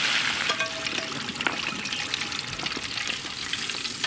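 Hot oil in a propane turkey fryer sizzling as the wire basket of catfish nuggets is lifted out of it. The sizzle drops off about half a second in to lighter crackling, with oil draining from the basket back into the pot.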